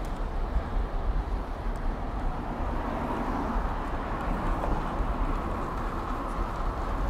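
Steady rushing noise of riding a road bike on asphalt: wind on the camera's microphone with a low rumble, and the hiss of the tyres on the road.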